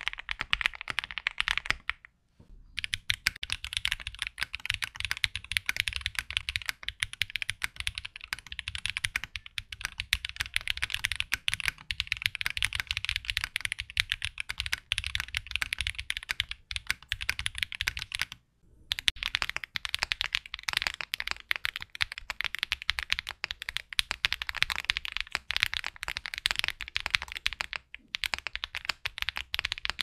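Fast, continuous typing on custom mechanical keyboards: a dense stream of keystroke clacks, played on several boards in turn, with short breaks at the changeovers about two seconds in, a little past halfway and near the end. The boards include a Mr. Suit with Gateron Cream Soda switches on a POM plate, a JRIS 65 with Kinetic Labs Salmon switches, and a Meletrix Zoom75 with lubed Akko Cream Blue V3 switches on a PC plate.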